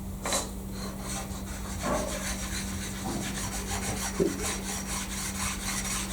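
A sharpening stone rubbed back and forth over a machined steel surface of a milling vice in quick, even strokes, lightly stoning it smooth.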